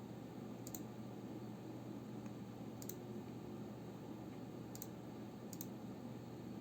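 Four separate key presses on a Rakk Diwa 65% mechanical keyboard, a faint click each, spaced irregularly about one to two seconds apart, over a steady low room hum.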